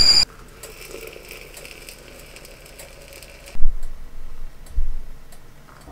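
Stovetop whistling kettle's shrill whistle, cut off just after the start. Then a faint hiss with light ticks for about three seconds, and two loud thuds about a second apart near the end.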